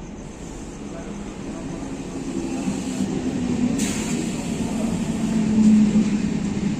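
A train approaching on the track, its rumble growing steadily louder, with a short sharp click about four seconds in.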